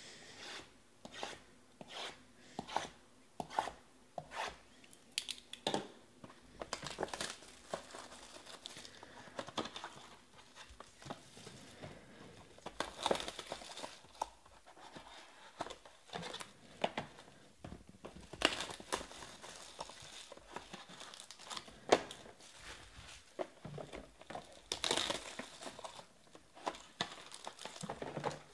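Clear plastic shrink wrap being cut and torn off a sealed trading-card box, then crinkled and crumpled in the hands. A run of sharp clicks comes in the first few seconds, followed by crackling and tearing.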